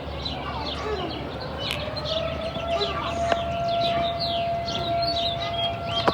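Outdoor tornado warning siren sounding a long steady tone that rises a little about two seconds in and then holds. Many small birds chirp over it.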